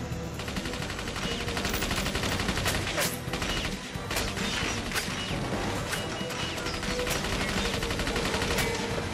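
Automatic gunfire: long bursts of rapid machine-gun fire, with sharper single cracks about once a second in the middle, as bullets strike the speedboat's hull. Film score music runs underneath.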